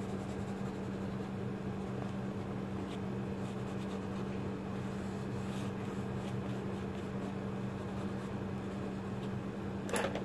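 Coloured pencil lightly scratching on paper in shading strokes, faint under a steady low electrical hum, with a short knock near the end.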